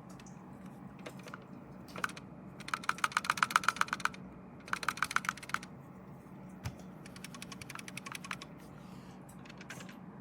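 Rapid plastic clicking of computer keys or buttons, in several quick bursts of about ten clicks a second, the longest lasting over a second.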